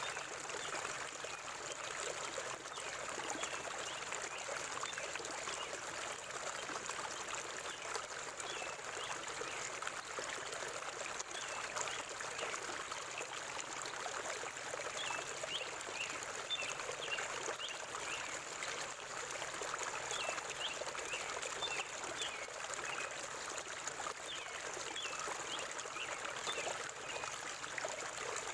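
Forest river water flowing steadily, a continuous rushing hiss. Small birds chirp briefly now and then over it, most often around the middle.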